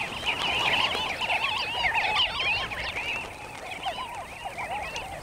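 A flock of sandgrouse calling together: many short chirping calls that rise and fall in pitch and overlap into a continuous chatter, busiest in the first three seconds.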